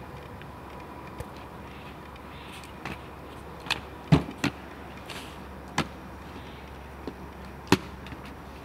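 Scattered sharp clacks and knocks from a child on inline skates handling a garden hose on concrete, the loudest about four seconds in and again near the end, over a steady low hum.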